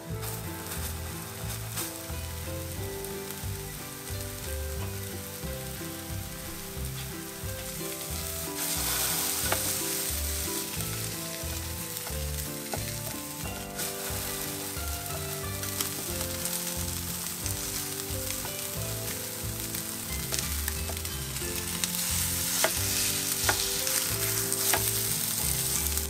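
Tofu and ground-meat hamburger patties sizzling steadily as they fry in a ceramic-coated frying pan. The sizzle grows louder about a third of the way in and again near the end, with a few sharp clicks.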